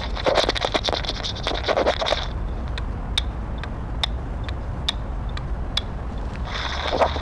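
Scratching and scraping of a listening probe pressed against and moved over a sculpture's surface. It comes in two spells of dense crackly scraping, one at the start and one near the end, with a few sharp ticks about once a second between them, over a steady low hum.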